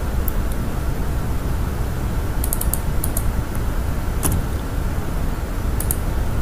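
Computer keyboard and mouse clicks, a few sharp taps in small clusters, over a steady low hum.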